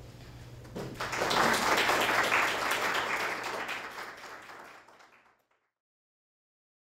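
Audience applauding, breaking out about a second in, then fading and cutting out about five seconds in.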